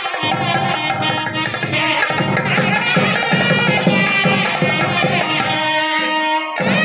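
Music with a steady drum beat under a melody line; the drum drops out briefly near the end.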